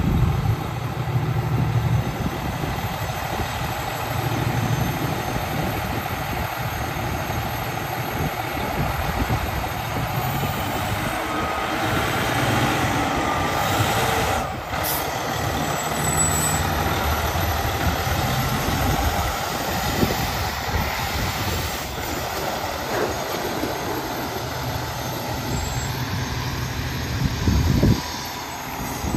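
Fire truck's Detroit Diesel Series 60 engine running steadily at idle, with a brief hiss about halfway through and a louder low rumble near the end.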